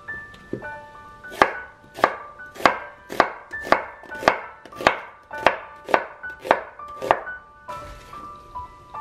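Chef's knife slicing an onion on a bamboo cutting board: a steady run of about a dozen chops, roughly two a second, stopping about seven seconds in.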